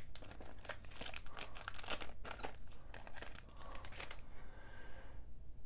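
Clear plastic card sleeve crinkling and rustling as a trading card is handled in it, with irregular crackles that die down about four seconds in.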